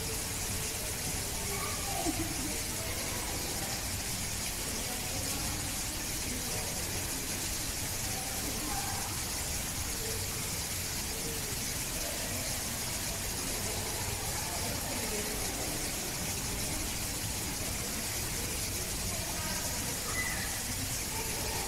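Steady background hiss with faint, distant voices now and then, and a brief knock about two seconds in.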